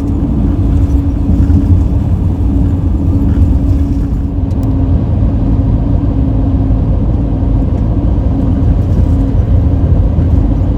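Camper van driving at highway speed, heard from inside the cab: a steady low rumble of engine and road noise with a constant hum running through it.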